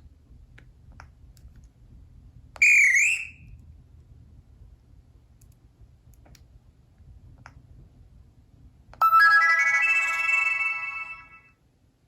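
Two short tones from a Sony Ericsson W950i mobile phone. About two and a half seconds in there is a brief tone that dips and rises in pitch; about nine seconds in a bright chime of several notes sounding together starts suddenly and fades away over about two seconds. Faint clicks fall between them.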